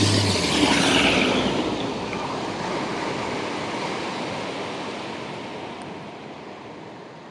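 Rushing wake and spray of a Coast Guard rescue boat speeding past close by, loudest about a second in and fading steadily as the boat pulls away. A low engine hum cuts off about half a second in.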